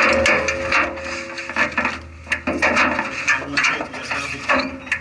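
Irregular clattering and knocking inside an off-road race car's cabin over a rushing noise. The noise drops off sharply near the end.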